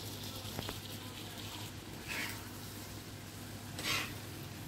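Grated boiled egg being scraped off a plate into a pan of masala: two short scraping swishes over a steady low hum, with a faint click near the start.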